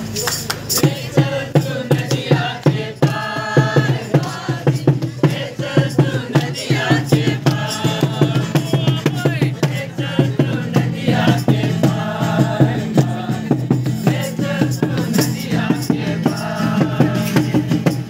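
A group of voices singing a Christmas carol over a hand-beaten drum keeping a steady, quick beat.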